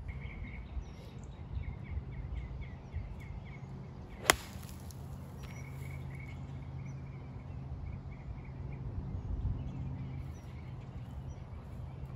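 A golf club strikes a ball from a pine-straw lie about four seconds in: one sharp crack, the loudest sound. A bird chirps in quick repeated notes in the background over a steady low hum.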